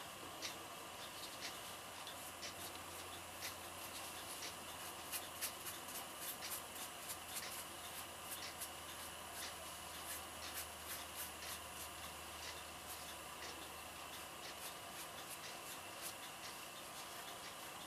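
Faint, irregular clicks and rubbing as a wet brush and gloved fingers work fresh concrete patching mix onto a concrete statue's arm, shaping it. The clicks come thickest about five to nine seconds in.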